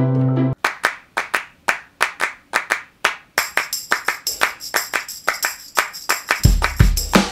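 A short pitched intro jingle cuts off about half a second in, then a percussion beat starts with sharp clap-like hits in a steady rhythm. A high jingling layer like a tambourine or hi-hat joins about three seconds in, and deep kick-drum thumps join near the end.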